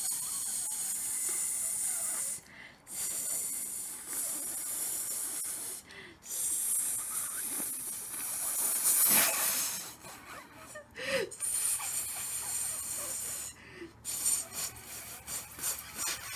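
A person making weird hissing, breathy mouth noises in stretches of a few seconds each, broken by short pauses.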